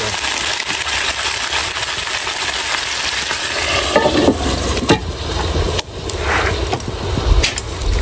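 Water hissing and sizzling in a hot cast-iron Dutch oven over coals. From about four seconds in, the heavy cast-iron lid knocks several times as it is fitted on.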